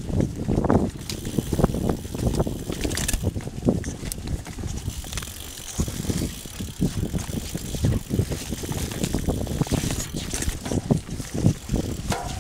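Mountain bike riding along a forest trail covered in leaf litter: the tyres roll over the leaves and the bike rattles and knocks over bumps in a steady run of irregular thumps.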